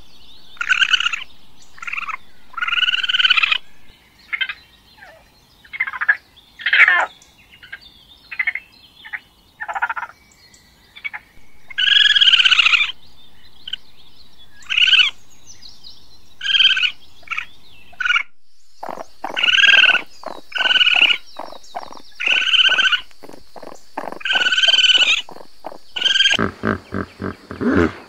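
Raccoon calling: a series of short, high, pitched calls, repeated every second or so. About two-thirds of the way through, a fast clicking chatter starts under the calls.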